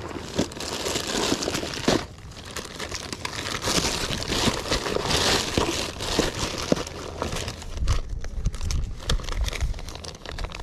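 A thin plastic grocery bag crinkling and rustling as hands dig through it, handling a clear plastic tackle box and a small plastic packet, with irregular crackles throughout.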